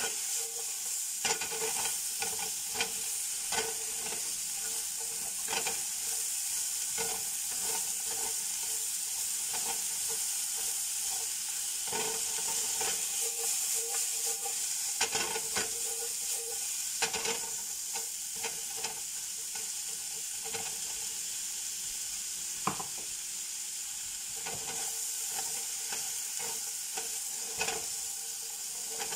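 Vegetable strips sizzling in a Kobach honeycomb-textured stainless fry pan, with a steady frying hiss and the spatula scraping and tapping against the pan as they are tossed.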